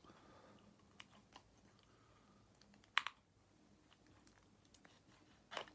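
Small plastic clicks from a correction tape roller being handled, a few faint ones and a sharper double click about three seconds in, with another click near the end.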